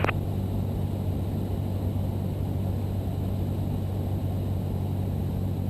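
Cessna 172's piston engine and propeller droning steadily in cruise, heard from inside the cabin as an even low hum.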